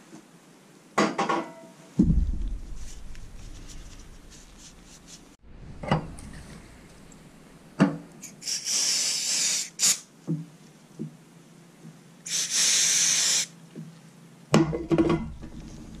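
Two bursts of aerosol brake cleaner, each about a second long, hissing as it is sprayed onto brake caliper pins. Around them come short knocks and clinks of small metal parts being handled.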